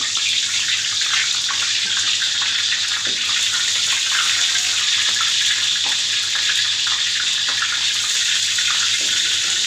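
Lemongrass sizzling steadily in hot cooking oil in a steel wok, stirred with a metal spatula: the first stage of frying, to make the oil fragrant before the onion goes in.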